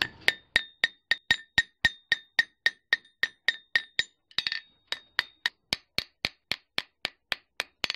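Blacksmith's hand hammer striking hot metal on an anvil in a steady rhythm, about four blows a second, with a brief break about four seconds in. Many blows carry a clear, high anvil ring. The metal is being forged into the scoop end of a crevicing tool.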